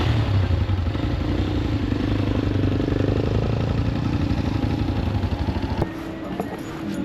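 Motorcycle engine running at low speed with a steady pulsing rumble, which stops abruptly near the end.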